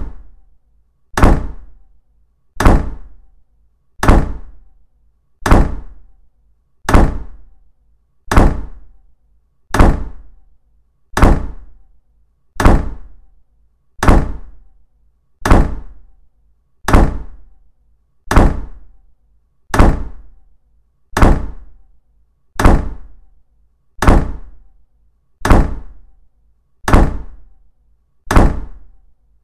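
A deep thud repeating at a steady pace, about one every 1.4 seconds, each hit dying away over roughly a second; the hits are identical, like a looped sound laid over the footage.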